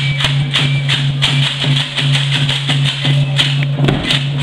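Folk dance music for a street procession: rattles and a hand drum keep a steady beat of about three strokes a second over a low held note that repeats with short breaks.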